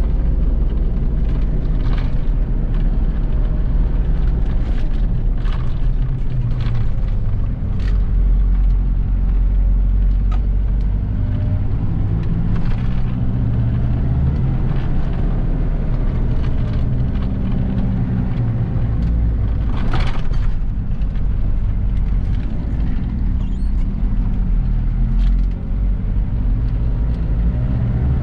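Mitsubishi Pajero's rebuilt 4D56 turbo-diesel engine under way while driving, a heavy low rumble whose pitch rises and falls as the revs change. A few brief knocks are heard along the way.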